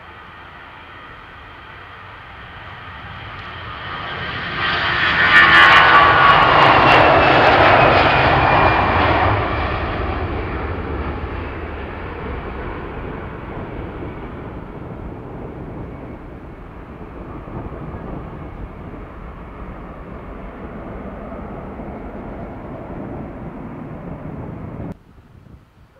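Airbus A320-family twin jet on its takeoff roll and climb-out. The engine noise builds, peaks about five seconds in as the jet passes with a high fan whine falling in pitch, then fades slowly as it climbs away, and cuts off suddenly near the end.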